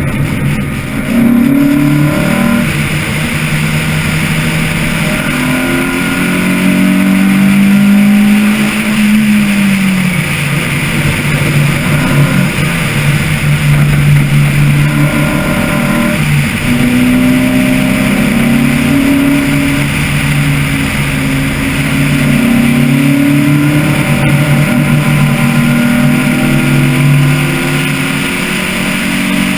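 Car engine at speed on a circuit, heard from on board, its note climbing and falling over and over as the car accelerates and the driver shifts or lifts, over a steady rush of wind and road noise.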